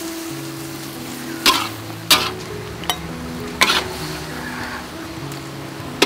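Hyacinth beans with shrimp sizzling in a hot wok as they are stir-fried, with several sharp clinks and scrapes of a metal ladle against the wok through the middle.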